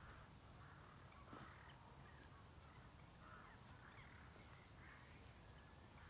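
Crows cawing faintly, a string of short calls one after another.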